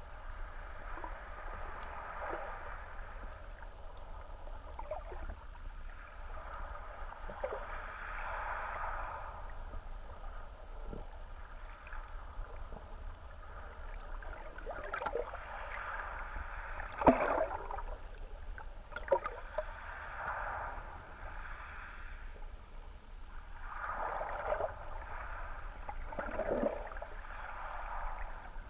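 Muffled underwater sound of moving water heard through a GoPro's waterproof housing: a low steady rumble with rushes of water that swell and fade every few seconds. A few sharp clicks sound over it, the loudest about 17 seconds in.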